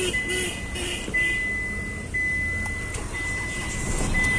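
Hyundai Xcent's dashboard warning chime: a steady high beep repeating about once a second, each beep nearly a second long with a short gap, as the diesel is started with a swapped-in ECM and instrument cluster. A low rumble runs underneath.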